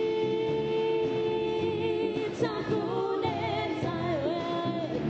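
Music: a singer holds one long note for about two seconds, then sings a wavering melody over a pulsing bass line.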